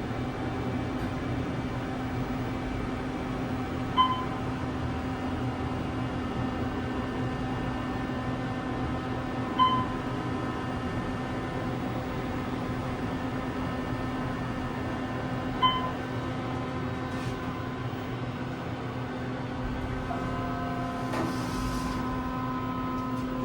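Inside a descending Otis hydraulic elevator car: a steady hum, with a short electronic chime sounding three times about six seconds apart as the car passes floors. A brief lower tone and a short rush of noise come near the end.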